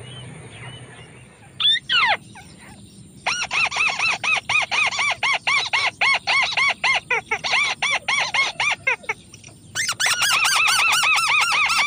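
White-breasted waterhen (ruak-ruak) calling: a short falling call about two seconds in, then a long loud run of repeated arched notes, about three a second, with a brief lull before a denser stretch near the end.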